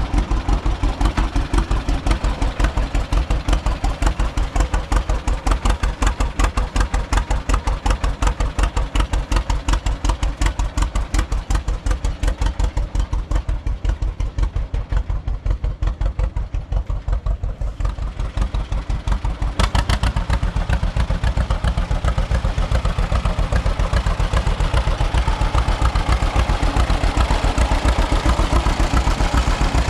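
John Deere two-cylinder tractor engine running with a steady, even popping exhaust beat. About twenty seconds in it gets louder and sharper.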